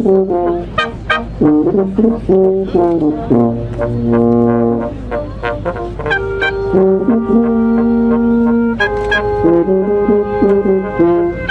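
Brass quintet of French horn, two trumpets, trombone and tuba playing live: quick, short notes at first, then long held chords through the middle, and quick notes again near the end.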